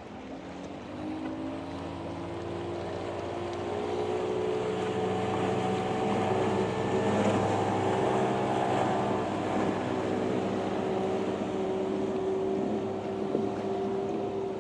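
Motorboat engine running steadily as the boat passes, its pitch rising slightly at first and growing louder until about halfway through, then easing off a little. Wind and water noise underneath.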